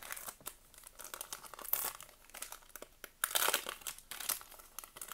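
Foil wrapper of a Japanese Pokémon card booster pack crinkling as it is handled and torn open, with a louder stretch of crackling about three seconds in.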